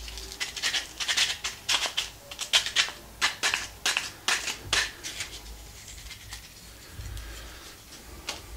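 Hands rubbing a small piece of sanded wood, likely with sandpaper or to brush off the dust, in quick scratchy strokes about three a second. The strokes die away after about five seconds into fainter handling, with a single click near the end.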